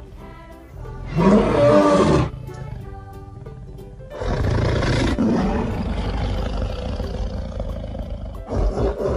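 Lion roaring: a short roar about a second in, then a longer, rougher one from about four seconds in, over background music.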